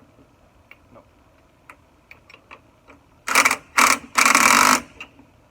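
Three short bursts of loud, rapid mechanical rattling, the last one longest, about three seconds in; light clicks of tools being handled come before them.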